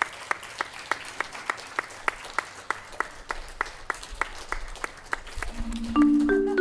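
Small audience clapping, the claps sharp and evenly timed at about four a second. About six seconds in, a marimba-like mallet tune begins over it.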